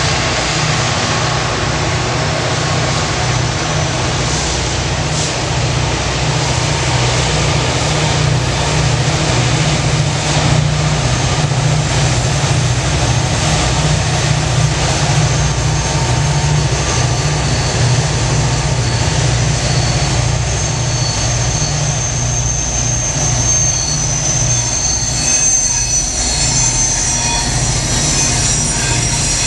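Norfolk Southern diesel locomotives and freight cars passing close by: a steady diesel engine rumble over the rolling noise of the wheels. In the last several seconds, high squealing tones come in from steel wheels grinding on the curved rail.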